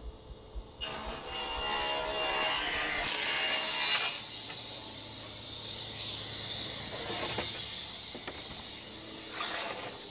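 Cabinet table saw cutting a sheet of plywood as it is pushed through the blade, loudest about three to four seconds in, then running on more quietly while the sheet slides across the table.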